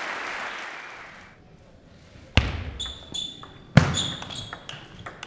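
Applause dying away, then a table tennis rally from about two seconds in: the ball clicking off the bats and bouncing on the table with short ringing pings, two strokes much louder than the rest.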